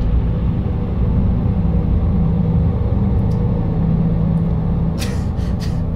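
A steady low rumble with a held low hum, and a few short soft rustles about five seconds in.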